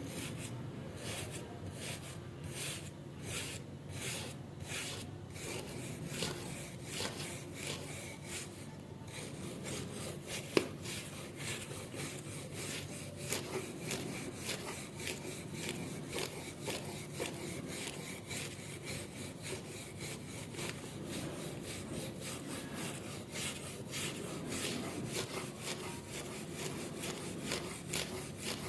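Hand tool scraping back and forth over the rusted steel of garden shears in steady rhythmic strokes, about two a second at first, then quicker. A single sharp click stands out about a third of the way in.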